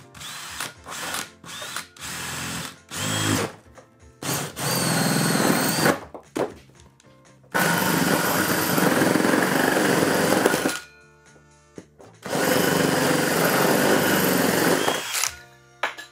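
Cordless drill boring up through the Airstream's aluminum ceiling panel. It starts with a few short trigger pulls in the first four seconds, then runs in three long stretches of a few seconds each, drilling the holes for the puck lights.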